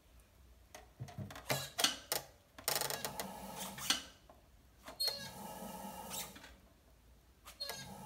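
Unfired clay pieces knocking and scraping against each other and the wheel head as one is set onto another, then an electric pottery wheel's motor whirring in two stretches, about five seconds in and again near the end.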